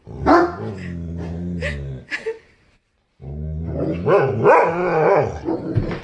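Dogs play-fighting: long, low growling with sharp barks mixed in, in two spells broken by a short silence about halfway through.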